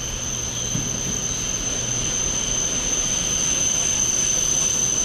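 E7/W7-series Shinkansen train pulling into the platform: a steady high whine over a rushing noise, growing slowly louder.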